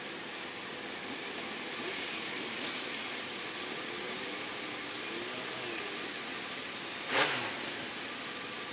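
Several motorcycle engines idling together in a queue. Near the end comes one short, loud burst.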